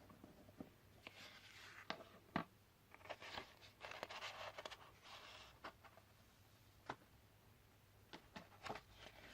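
Faint rustling and scraping of paper card being handled and slid about, with a few light taps and clicks.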